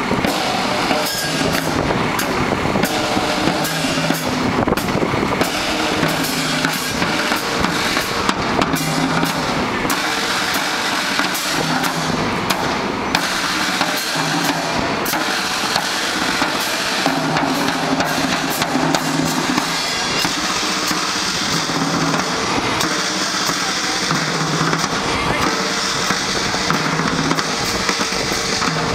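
Marching band playing a march: snare and bass drums beating steadily under a tune.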